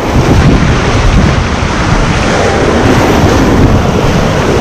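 Loud, steady rush of fast-flowing river water around a raft, with wind buffeting the microphone.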